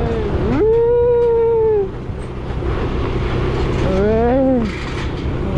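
A person's long, drawn-out vocal calls over the steady low hum of a scooter engine running at low speed. The first is held for over a second and falls away at its end; a shorter one about four seconds in rises and falls.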